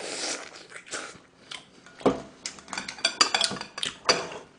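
Close-up eating noises from pork-bone stew (gamjatang): irregular short clicks, smacks and clinks as meat is bitten from metal serving tongs and the tongs tap against the dish, growing busier after about two seconds.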